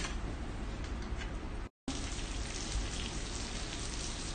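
Pork belly slices and hotdogs sizzling steadily on a Russell Hobbs electric grill plate. The sound breaks off for an instant just under two seconds in, then goes on.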